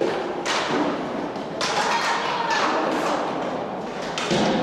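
Inline hockey play: a run of sharp knocks and thuds from sticks, puck and rink boards, about eight in a few seconds, each ringing on briefly in a large hall.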